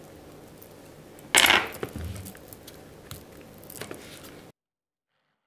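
A knife being laid down and a plastic citrus juicer moved on a kitchen countertop. There is a short, loud clatter about a second in, then a low knock and a few light clicks, and the sound cuts off suddenly.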